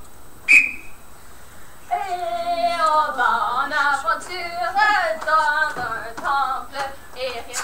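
A short high whistle tone about half a second in, then a young performer's voice singing with long held notes that slide up and down in pitch.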